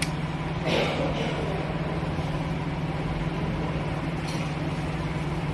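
Bajaj Pulsar RS200's single-cylinder engine idling steadily, with an even, unchanging hum.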